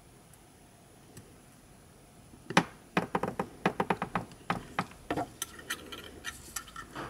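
Metal tweezers clicking and tapping against the JBL Go 2 speaker's plastic housing while a small microphone in its rubber seal is pushed into place. Quiet at first, then about two and a half seconds in a rapid run of sharp clicks starts, the first the loudest.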